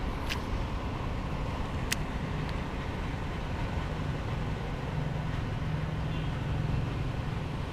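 Road traffic: a steady low rumble with a vehicle engine hum that grows louder in the second half, and two sharp clicks in the first two seconds.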